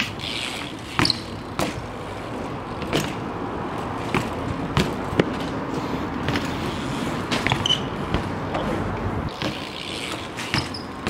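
BMX bikes rolling over concrete, with irregular sharp knocks and clicks from the bikes bumping and rattling, over a steady background of street traffic noise.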